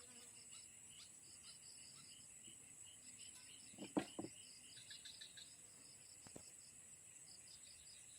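Faint insect chorus: a steady high-pitched drone with rows of rapid, rhythmic chirps over it. A single sharp knock about four seconds in.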